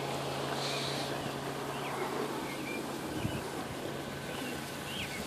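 Outdoor background of a steady low hum and hiss, which fades about two seconds in, with a bird chirping short notes several times.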